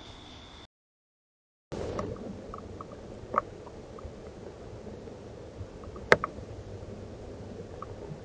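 Outdoor background hiss picked up by a trail camera's microphone. A steady high tone cuts off under a second in, followed by about a second of dead silence, before the hiss resumes with a few faint ticks and one sharp click or snap about six seconds in.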